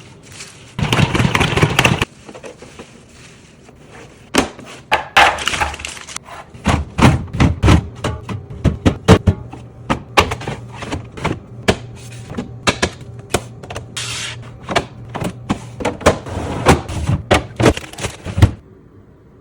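Fridge restocking: a quick series of clicks, taps and knocks as containers and food packages are set down and arranged on fridge shelves, with a short louder rustle about a second in. The sounds stop suddenly near the end.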